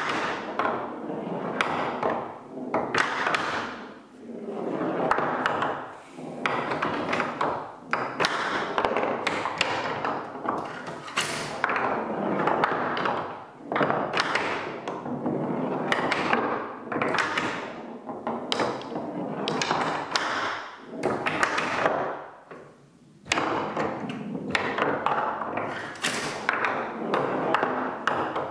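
Marbles rolling and rattling across a plywood pinball playfield, knocked by wooden flippers in frequent sharp clacks and thumps, with a short lull about three quarters of the way through.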